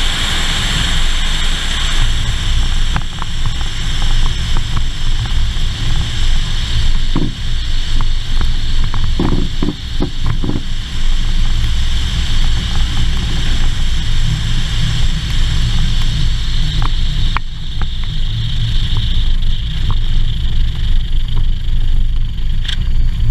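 Cessna light plane's piston engine running at idle, propeller turning slowly, while the plane rolls over a grass runway with a steady low rumble. A cluster of knocks from the wheels going over bumps comes in the middle.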